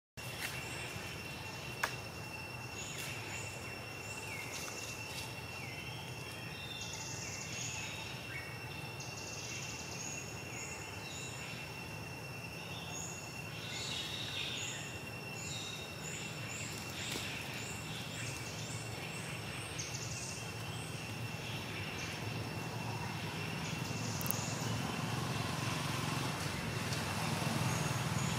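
Forest ambience: a steady high insect drone with many short, high chirping calls in quick succession over a low rumble. The chirps die away in the last few seconds.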